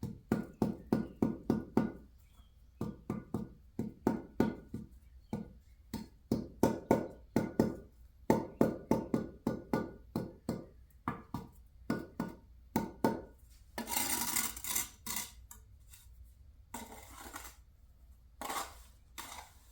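Steel brick trowel tapping on brick and mortar in quick runs of knocks, about four to five a second with a slight metallic ring, as a brick is settled into its mortar bed. Near the end come a few longer trowel scrapes through wet mortar.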